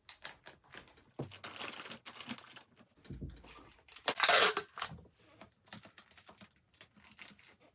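Crinkly plastic packaging being handled, with scattered light clicks and rustles and a louder crinkle about four seconds in.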